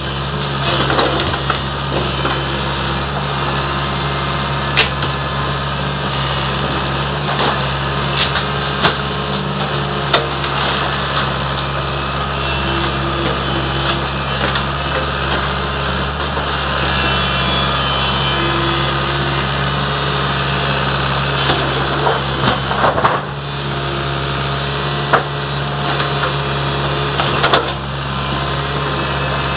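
Earthmoving machine's diesel engine running steadily under work, with scattered knocks and clatter of debris being handled during demolition.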